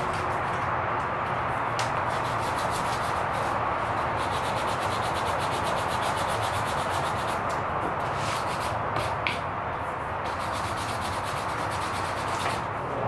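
Sandpaper scratching steadily back and forth over a knife's curly birch handle scales and pins, in quick repeated strokes: 150-grit hand sanding to rough-shape and round the handle contours.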